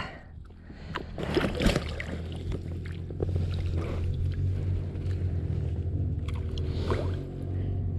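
Knocks and water sounds around a fishing kayak as a freshly caught bass is handled, then a steady low hum from about three seconds in.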